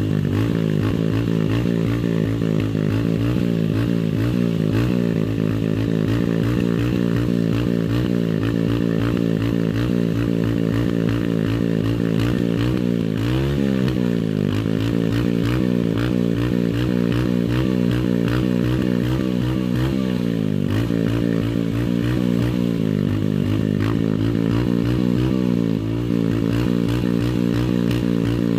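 Royal Enfield Bullet single-cylinder motorcycle engine running steadily, its exhaust blowing through a JCB backhoe's air-filter element held against the tailpipe to blast the dust out. The engine speed rises and falls briefly about halfway through.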